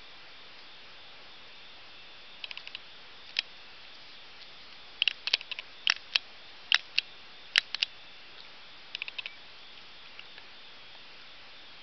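Sharp small clicks and taps from handling, in scattered groups, a few in quick runs, loudest near the middle, over a steady hiss.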